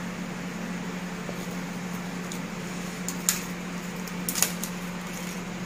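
Steady low room hum, with a few short crisp plastic clicks and crinkles about three seconds and four and a half seconds in, from gloved hands handling the wrapped packets of acupuncture dry-needling needles.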